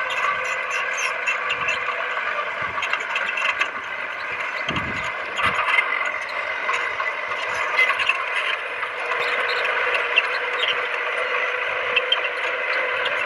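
Crawler bulldozer working, its engine running steadily while the tracks and blade rattle and scrape with many small clanks.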